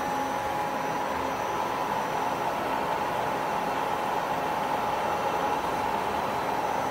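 CNC machining center running its program: a steady machine whine over an even hiss, with no breaks or impacts.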